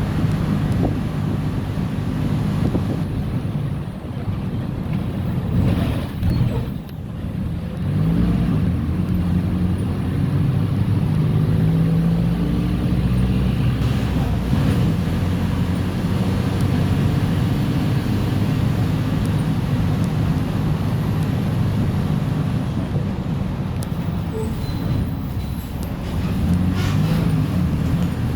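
Mercedes-Benz OF-1418 bus's diesel engine running under way. Its note drops briefly about six seconds in, then climbs and holds steady, with another short dip and rise near the end.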